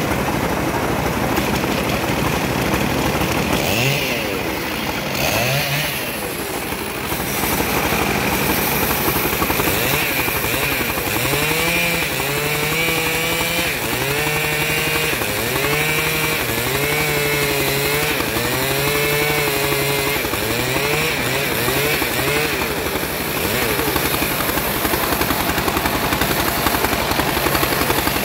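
Homemade bandsaw running and ripping sengon timber: a loud, steady machine noise, with a pitched tone that repeatedly rises and falls between about a third and three quarters of the way through.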